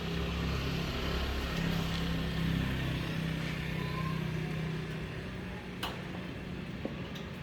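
A motor vehicle's engine running, louder over the first few seconds and then fading away, with a couple of faint clicks near the end.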